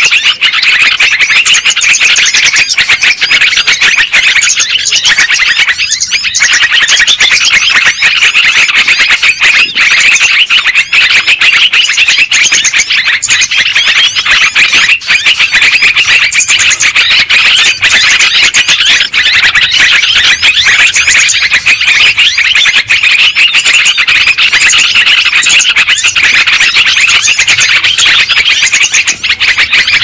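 Yellow-vented bulbuls (terucukan) calling in a dense, unbroken chatter of many overlapping bubbly notes.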